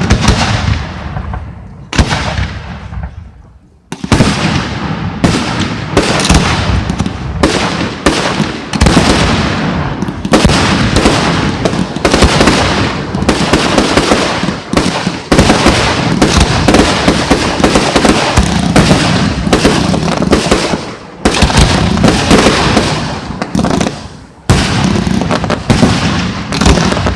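Aerial fireworks display: shells bursting with sharp bangs, each trailing off in a rumble. A few spaced bursts at first, then about four seconds in a near-continuous rapid barrage of bangs, like a finale volley.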